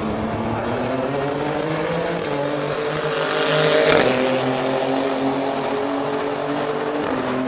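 Renault R.S.01 race car's twin-turbo V6 accelerating hard, its pitch climbing through the revs. It is loudest as it passes close about four seconds in, then drops in pitch as it goes away down the straight.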